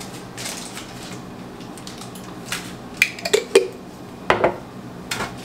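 Metal screw lid clinking against a glass sauce jar as it is screwed back on: a quick cluster of sharp clinks about three seconds in, then another knock a second later.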